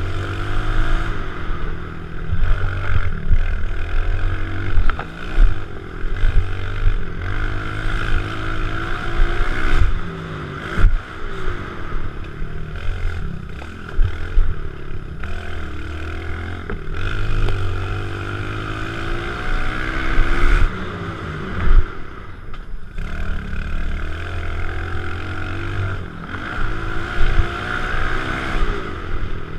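Kawasaki KLX110 pit bike's single-cylinder four-stroke engine revving up and dropping back over and over as it is ridden hard, with occasional knocks and clatter from the bike.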